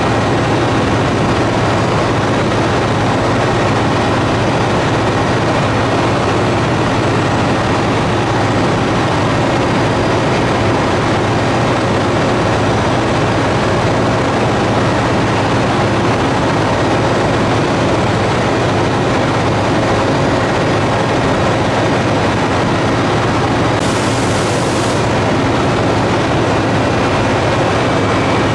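Scheuchzer Grizzly 104 L rail-grinding train grinding the rails: a steady, loud grinding noise over the running of its engine. A brief sharper hiss comes in about 24 seconds in.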